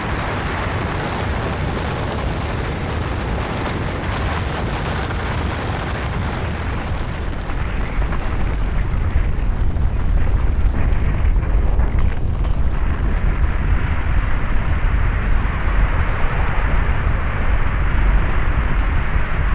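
Avalanche sound effect: a continuous deep rumble of rushing snow, which grows louder and heavier about eight seconds in.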